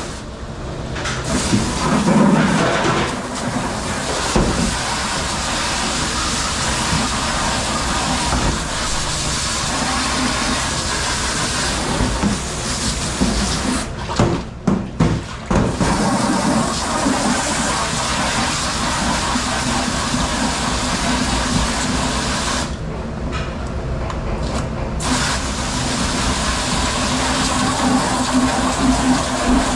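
Water spraying hard from a commercial pre-rinse spray nozzle onto dishes in a steel sink, cutting out briefly twice.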